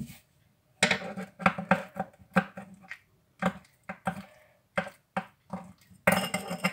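Small lump of homemade glue slime squeezed and kneaded by hand in a small plastic bowl: an irregular run of short sticky crackles and clicks, busiest near the end.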